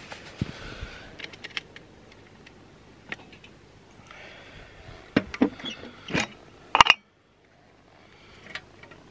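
Handling noise from objects being moved: scattered clicks, knocks and scrapes, with several sharp clatters between about five and seven seconds in. The sound cuts out abruptly about seven seconds in, then comes back faintly.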